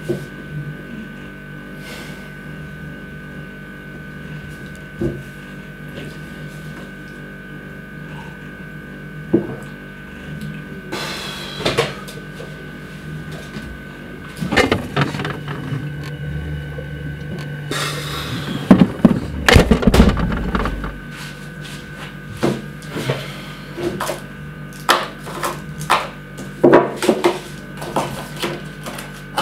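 Handling sounds in a small kitchen: scattered knocks and clatter of objects being picked up and set down, with a busier stretch of knocking and rummaging about two-thirds of the way through, over a steady low hum.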